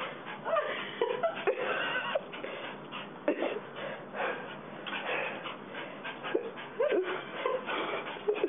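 Small dog whining and yipping in short, repeated cries that bend in pitch, eager to get at a hamster in its cage above.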